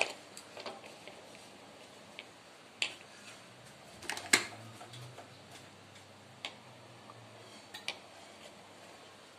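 A few scattered light clicks and knocks of a plastic coffee-capsule holder and capsule being handled and set down on a stone counter, the sharpest about four seconds in.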